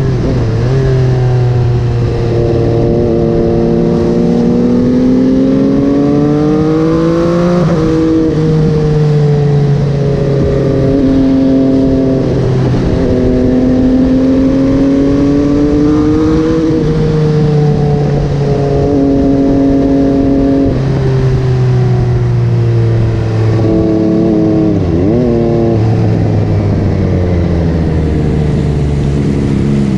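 MV Agusta Dragster 800's three-cylinder engine through a QD Power Gun exhaust, heard on board while riding. The engine note climbs and sinks over several seconds at a time, with a few sharp breaks in pitch as the rider shifts and changes throttle.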